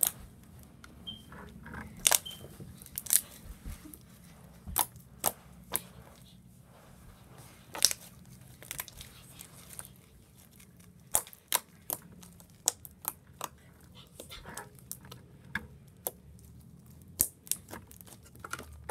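Homemade glue-and-detergent slime being squished, stretched and poked by hand, giving irregular sharp clicks and pops, over a steady low hum of background noise.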